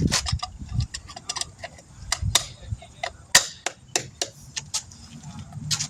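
Hand tools and lug-nut work on a truck wheel: an irregular run of sharp metallic clicks and clinks, with two louder knocks in the middle.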